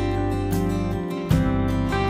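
Background music of strummed acoustic guitar chords, with a new chord struck about a second and a half in.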